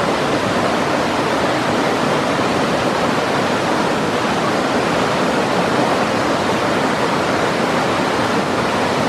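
Whitewater river rapids rushing loudly and steadily, churning around boulders.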